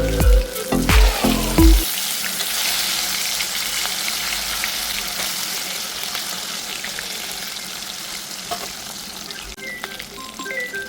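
Food frying in hot oil in a pan: a loud sizzle starts about two seconds in and slowly dies down. Background music with deep bass notes plays at the start.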